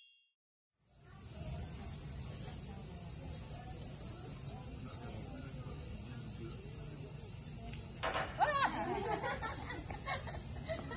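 Steady high-pitched insect chorus fading in after a moment of silence and holding without a break, over a low outdoor rumble. Faint voices come in near the end.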